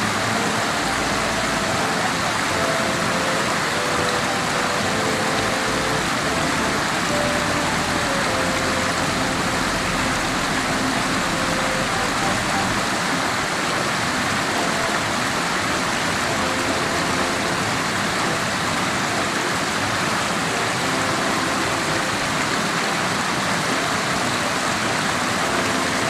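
Small mountain stream rushing over rocks and little cascades: a steady, even rush of water.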